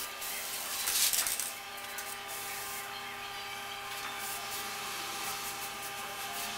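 Aerosol spray paint can hissing as graffiti is painted, loudest in a burst about a second in, then fainter. A steady background hum with a few steady tones runs underneath.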